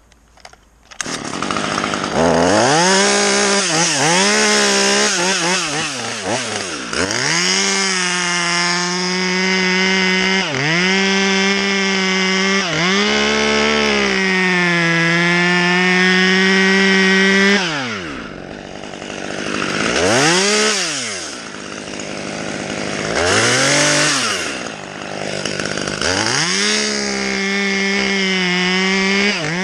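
Husqvarna top-handle chainsaw cutting through a pine trunk, revved repeatedly to full throttle and dropping back between cuts. It starts about a second in, eases off near the middle with two short blips, then runs a long cut near the end.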